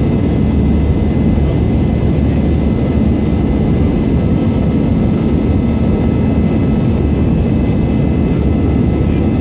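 Airbus A320 cabin noise during the climb after takeoff: the jet engines and airflow make a steady, loud drone, with a few faint steady high whines above it.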